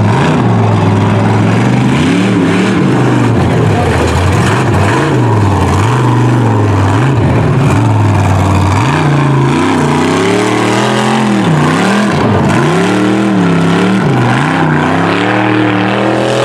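Formula Offroad buggy's engine at high revs under full throttle, its pitch holding and dipping, then rising and falling quickly from about nine seconds in as the throttle is worked on the climb.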